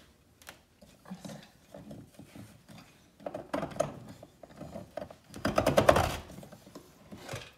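Hand-turned hole saw grinding and rasping into drywall as it is twisted back and forth, with two louder stretches of rapid scraping, about halfway through and shortly after. The saw is being pressed far harder than it needs to be.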